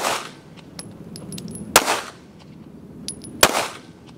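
Three pistol shots, about one and three-quarter seconds apart, each with a short ringing echo.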